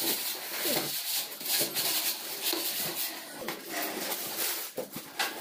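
Plastic packing straps and a cardboard box being handled: irregular rustling and scraping of cardboard and plastic, with scattered light knocks.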